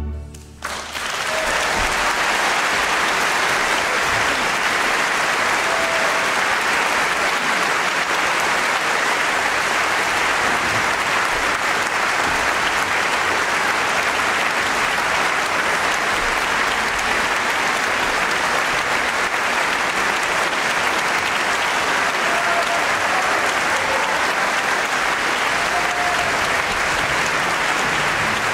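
An orchestra's final chord dies away at the very start, then a large concert-hall audience breaks into applause about a second in, which carries on at a steady level.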